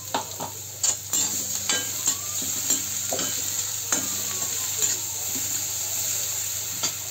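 Chopped onion with ginger-garlic paste sizzling in hot mustard oil in a metal kadhai, stirred with a perforated metal spoon that scrapes and knocks against the pan about ten times.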